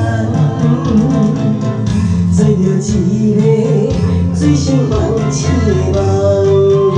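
Live band playing the instrumental introduction of a Taiwanese Hokkien pop song: a melody line with guitar over steady bass and drums.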